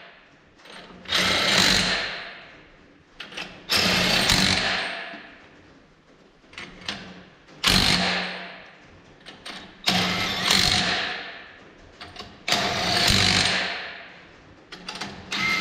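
Yellow DeWalt cordless impact wrench running lug nuts onto a dually wheel in six short bursts, each starting sharply and tailing off, about every two to three seconds, with small clicks between them as each nut is set.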